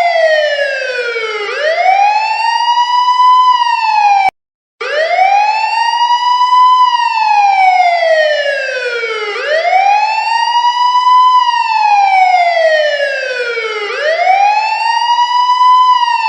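Police car siren sounding a slow wail: the pitch climbs over about two seconds and slides back down over nearly three, repeating about every four and a half seconds. It cuts out briefly about four seconds in, then resumes.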